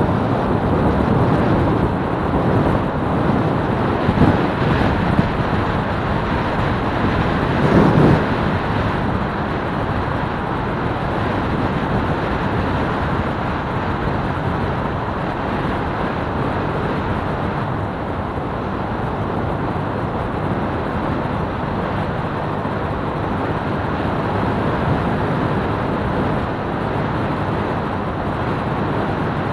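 Small motorcycle being ridden at steady speed, its engine and road and wind noise blending into a continuous rush on the rider's camera microphone, with brief louder swells about 4 and 8 seconds in.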